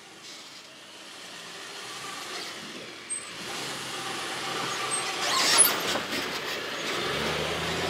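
2007 Lexus GX470's V8 engine at a slow off-road crawl, its tyres crunching over dirt and rock as the SUV comes up to and passes close by, growing louder as it nears, with a brief louder crunch about five and a half seconds in.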